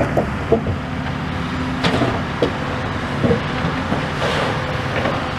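Steady engine hum over a wash of outdoor traffic noise, with a few short light knocks.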